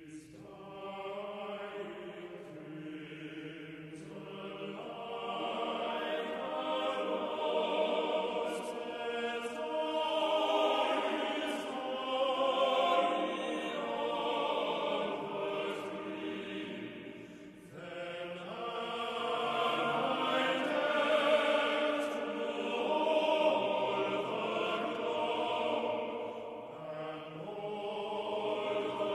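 A choir singing in sustained, many-voiced chords, with a brief break between phrases a little past halfway.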